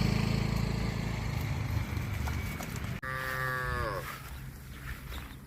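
Cattle mooing: a low, drawn-out moo that fades over the first few seconds, then, after an abrupt cut, a shorter, higher moo about a second long whose pitch drops at the end.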